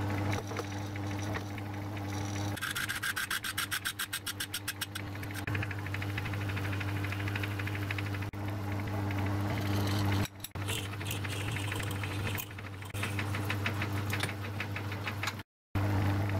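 Myford Tri-Leva lathe running with a steady hum while a drill in the tailstock chuck cuts into the spinning workpiece. A rapid ticking, about five a second, starts about three seconds in and lasts a couple of seconds.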